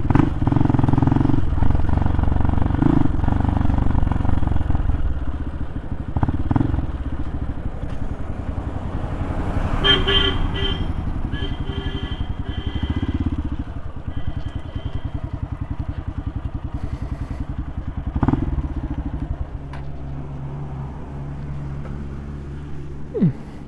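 Motorcycle engine running steadily on the move, with a vehicle horn honking in several short blasts about ten seconds in. The engine eases off near the end.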